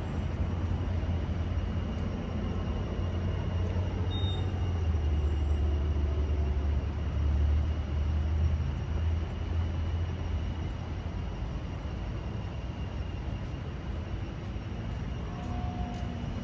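Low outdoor rumble of a passing vehicle, swelling in the middle and easing off over the last few seconds.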